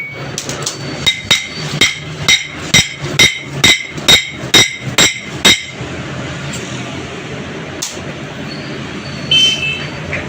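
A hammer striking metal about a dozen times at a steady pace of roughly two blows a second, each blow ringing. After that come a single knock and one ringing metallic clink near the end.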